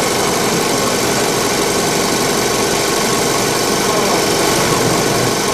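Industrial sewing machines running steadily, stitching quilted fabric, with an even mechanical hum.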